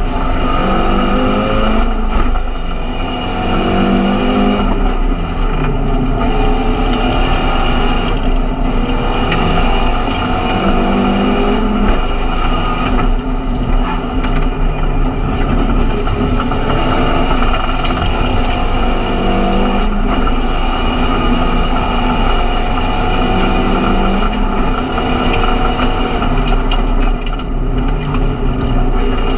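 Seat Leon Supercopa MK1 race car's turbocharged four-cylinder engine at full throttle, heard from inside the stripped cabin: the pitch climbs and drops back again and again as the driver accelerates and shifts gears, with road and tyre noise underneath.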